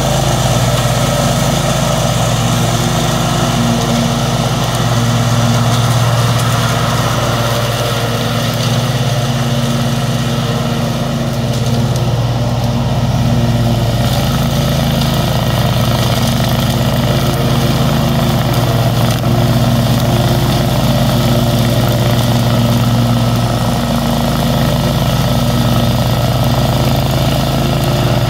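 Zero-turn riding mower's engine running steadily as the mower drives across the lawn.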